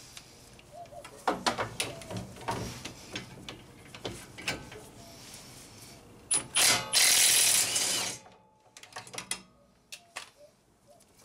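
Milwaukee 3/8-inch cordless impact wrench running in one loud burst of about a second and a half, about two-thirds of the way in, spinning out a Loctite-coated caliper bracket bolt. Before it come scattered clicks and clinks of metal tools.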